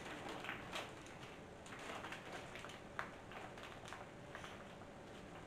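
Faint rustling and crinkling of a plastic bag of brown sugar being untied and unrolled by hand, with a sharper click about three seconds in.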